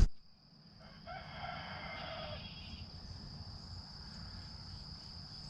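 A rooster crows once, one call lasting about two seconds, starting about a second in. A thin, steady, high-pitched drone runs underneath.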